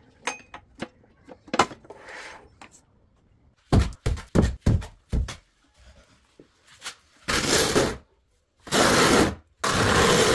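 Hand tool working wood: a quick run of sharp knocks, then three long scraping strokes near the end.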